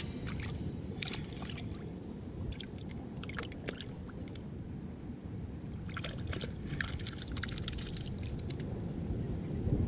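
Sea water sloshing and splashing at the edge of the rocks as hands dip into it, with a cluster of small splashes about six to eight seconds in, over a steady low rumble of water.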